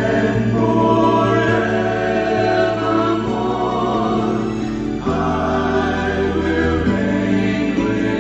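Choir singing a gospel worship song over sustained held chords, with a new sung phrase starting about five seconds in.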